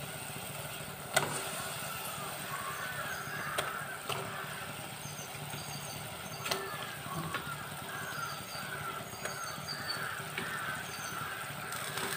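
Tamarind gravy simmering in an aluminium pot, bubbling steadily, with a few soft knocks as pieces of murrel fish are dropped into it.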